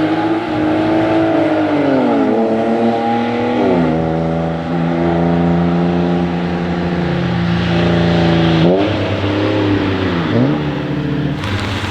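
A car engine revving hard on the Nürburgring Nordschleife, its pitch falling sharply several times as it changes gear or lifts and climbing again, over a steady hiss.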